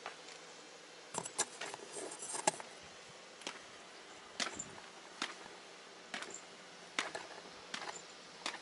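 Footsteps going down concrete stairs: a sharp step about every second, with a cluster of lighter clicking and jingling between about one and two and a half seconds in.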